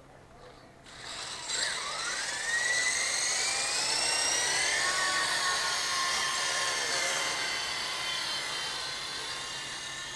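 A Wltoys V912 RC helicopter's brushless main-rotor motor and rotor spool up about a second in: a high whine that rises in pitch as the helicopter lifts off. It then holds steady and slowly fades as the helicopter climbs away.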